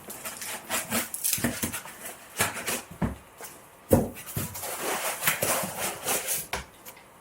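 Polystyrene foam packing squeaking and rubbing as it is pulled out of a cardboard box, with scattered knocks and handling noise.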